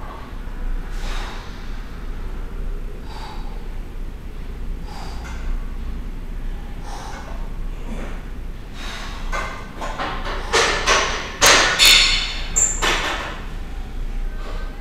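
Short, sharp breaths about every two seconds as front squats are done with a loaded barbell. From about ten and a half seconds in comes a cluster of loud clanks and thuds with ringing metal as the barbell and its plates are set down at the end of the set.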